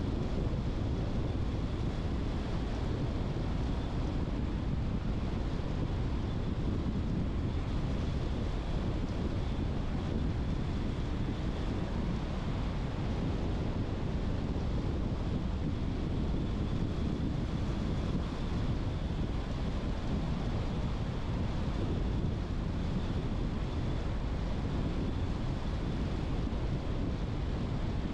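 Steady road noise from a car driving along, an even low rumble of tyres and wind with no breaks, and a faint steady high whine over it.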